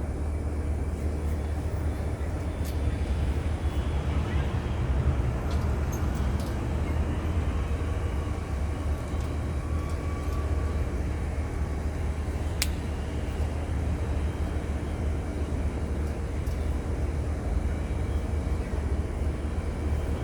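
Steady low rumble of outdoor background noise, with a single sharp click about thirteen seconds in.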